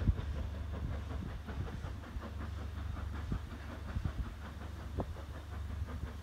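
Steam train pulling away into the distance: faint, fairly regular chuffs and rattle of the carriages over a steady low rumble.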